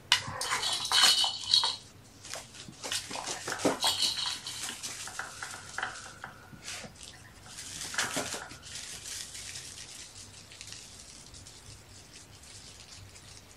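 Rattling and clattering of small hard objects: quick clusters of clicks and knocks in the first two seconds and again around four seconds, another around eight seconds, then tapering off.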